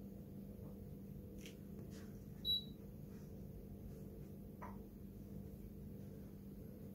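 Quiet indoor room tone with a steady low hum and a few faint clicks, broken by a single short, high beep about two and a half seconds in.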